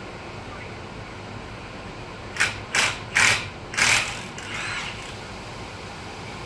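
Impact wrench run in four short bursts, loosening a car wheel's lug nuts.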